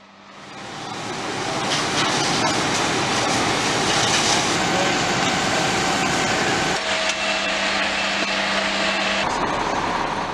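Steady rushing noise of a working fire scene with a running engine's hum underneath. It fades in over the first two seconds, and the hum drops in pitch about two-thirds of the way through.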